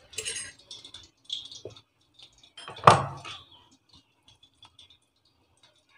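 Dishes being handled on a tabletop: light clinks and clatter, with one louder knock about three seconds in as a glass mixing bowl is set down among the plates.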